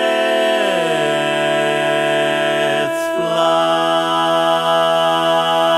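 Barbershop quartet singing a cappella in close harmony, holding long sustained chords. The chord slides down about half a second in, breaks briefly about three seconds in, then a new chord is held.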